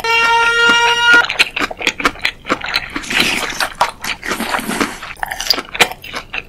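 A steady pitched tone lasts about a second. It is followed by dense crunching and chewing eating sounds with many sharp crackling clicks, from ASMR mukbang sound effects of candy being bitten and chewed.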